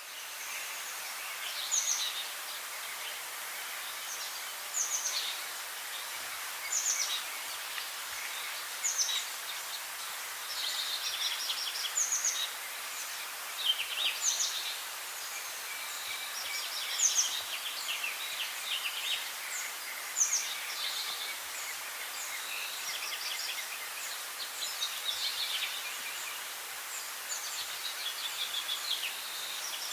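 Songbirds singing: short, high phrases of quick down-sweeping notes and trills, recurring every couple of seconds over a steady background hiss.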